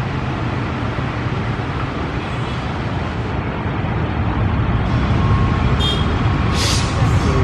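Two coupled CC206 diesel-electric locomotives running light and approaching, their engines giving a steady low rumble that grows slightly louder over the second half. A brief hiss comes near the end.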